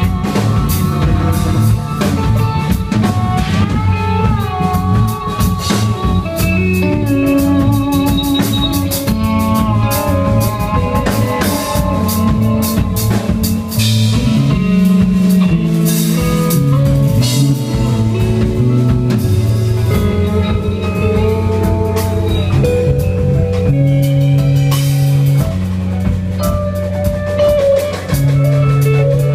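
Live rock band playing an instrumental passage: an electric guitar lead with bent notes and vibrato over a drum kit and a bass line.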